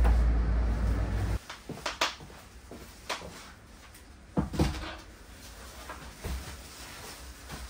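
A few sharp knocks and clatters, with faint rustling, as camping gear is unpacked and set down in a small bare room. The loudest knock comes about four and a half seconds in, as an item is put on the windowsill. A low steady rumble cuts off abruptly after the first second and a half.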